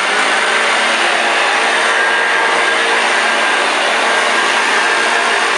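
Hoover Junior U1206 upright vacuum cleaner from 1987, its 240-volt motor running steadily at full speed just after being switched on: a loud, even rushing noise with a steady high tone through it.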